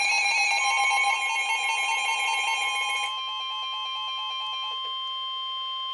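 NOAA Weather Radio's steady 1050 Hz warning alarm tone, which signals that a warning message follows; it starts about half a second in and holds to the end. For the first three seconds a rapidly warbling electronic alarm beeps over it, then stops.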